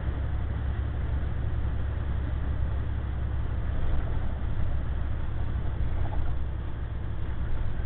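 Steady in-cab drone of a semi truck at highway speed: engine hum and road noise, with wind rushing in at the driver's door. The driver calls the leak a defect: at speed the wind pulls the door away from its frame.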